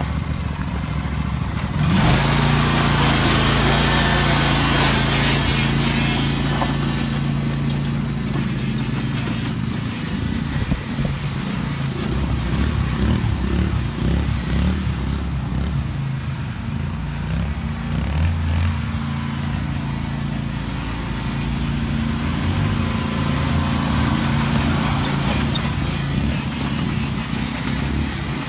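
Small engines of a John Deere riding lawn tractor and a small sport quad running together, getting louder about two seconds in.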